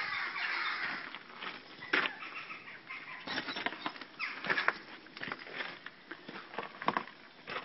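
Footsteps on a gravel drive: irregular crunches about a second apart, with some rustle.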